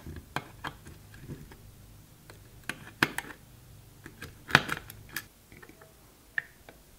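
Scattered light metal clicks and taps of tweezers and diode leads against the turrets of a turret board as diodes are fitted, the loudest about three and four and a half seconds in.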